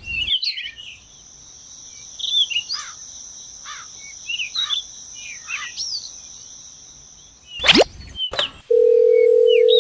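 Birds chirping in short repeated calls over a steady high-pitched drone. Near the end come a quick rising whoosh and then a steady electronic beep tone.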